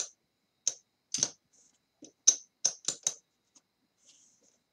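Casino chips clacking against each other as they are counted out and stacked on the table. The sharp clicks come one by one at first, then several in quick succession about two to three seconds in.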